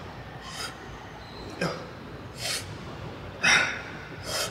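A man breathing hard with short, sharp breaths, about one a second, in time with the reps of a barbell bent-over row; the one about three and a half seconds in is the loudest.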